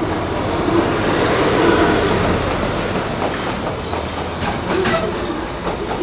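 Train moving along the platform track, its wheels clattering over rail joints with brief squeals, loudest about two seconds in.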